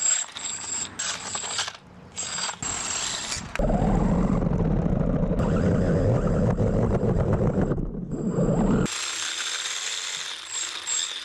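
Electric RC car's brushless motor and gear drivetrain running in short on-off bursts, with a high whine and a rattling, ratchet-like gear noise. For about five seconds in the middle a louder, lower rumble takes over.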